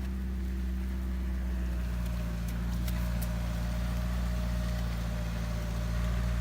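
UAZ off-road vehicle's engine running steadily at idle, an even low hum that holds constant, with a few faint clicks about halfway through.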